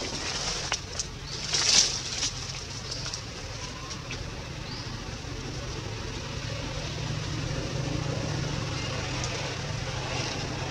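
Outdoor background among trees: a few sharp crackles and rustles, like twigs and leaves being moved, loudest just before two seconds in, over a steady low rumble that grows a little stronger in the second half.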